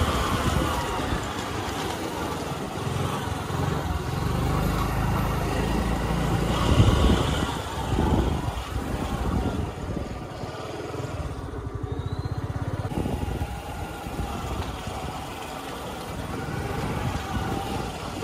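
Small motorbike's engine running while it is ridden along a lane, the engine note rising and falling with the riding and loudest about seven seconds in.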